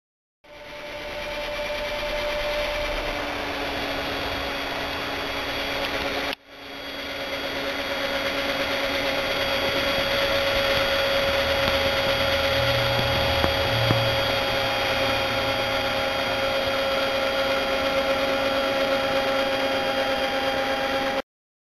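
A 12-volt cordless drill spinning a vacuum-cleaner impeller in a homemade G-scale rotary snowplow, running with a steady whine as it throws snow. The sound cuts out briefly just after the start and again about six seconds in, builds back up each time, and stops suddenly near the end.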